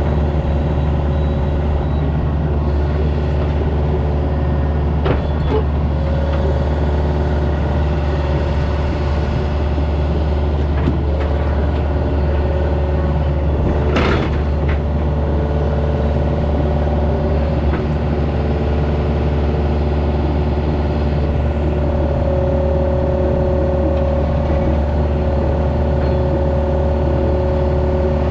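An engine running steadily at a constant speed, with a single sharp knock about halfway through.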